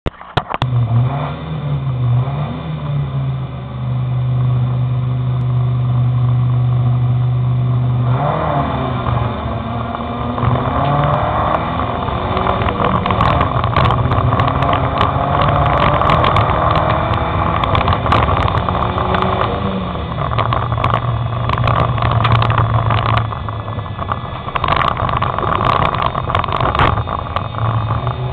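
Race car engine heard from inside the car, running at steady revs, then revved hard about a third of the way in as the car accelerates away on the dirt track. Through the second half there is a clatter of sharp knocks as dirt and stones are thrown against the car.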